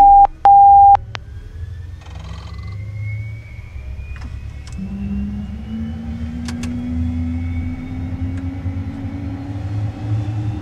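Beechcraft Premier I's Williams FJ44 turbofan spooling up during engine start, a high whine rising slowly and steadily in pitch over a constant low rumble, with a lower rising tone joining about halfway through. Two loud, even cockpit beeps sound in the first second.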